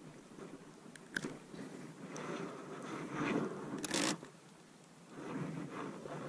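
Close handling noise while a small largemouth bass is unhooked and held up by hand: irregular scrapes and crunches with a few sharp clicks, loudest about three to four seconds in.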